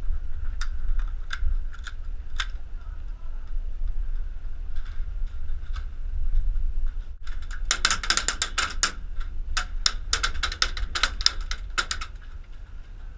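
Airsoft guns firing: a few single shots early on, then rapid strings of shots about eight seconds in and again from about ten to twelve seconds, over a steady low rumble of wind and handling on the helmet camera's microphone.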